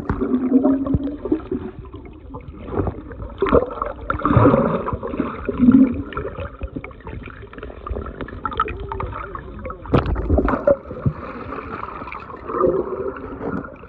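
Muffled underwater sound: bubbles gurgling and water churning as swimmers dive below the surface, with a few sharp knocks about three and a half and ten seconds in.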